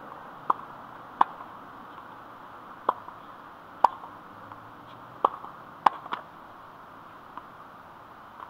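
Tennis ball impacts on a hard court: about eight sharp, short knocks spread unevenly, from the ball bouncing on the court and being struck with the racket.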